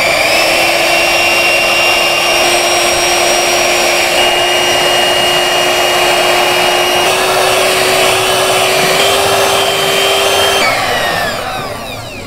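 Electric hand mixer running steadily with a motor whine as its beaters whip a large pot of raw eggs. The pitch steps up slightly twice, then the motor winds down near the end as it is switched off.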